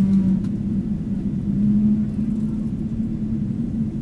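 Low, steady rumble inside the cabin of a Boeing 777-300ER on the ground after pushback, with a faint steady hum from its engines running.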